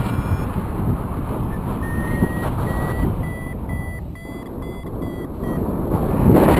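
Paragliding variometer beeping, about two to three short beeps a second edging slightly up in pitch, the climb tone that signals the glider rising in lift. Wind rumbles on the microphone throughout and grows louder near the end.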